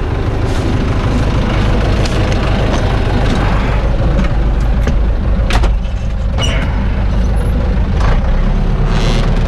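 An engine running steadily, with a few short clicks over it.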